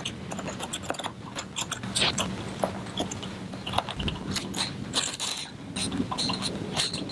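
Small curved scissors snipping and picking at the cut yarn pile of a tufted rug: an irregular run of short crunchy snips and scrapes, over a faint steady hum.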